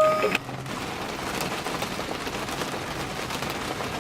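Rain pattering densely on the car's roof and glass, heard from inside the cabin. A brief electronic beep sounds right at the start.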